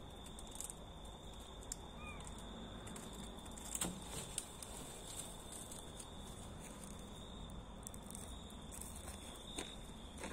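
Quiet night-time outdoor ambience: a steady high-pitched drone, a few soft clicks and footsteps, and one brief squeak about two seconds in.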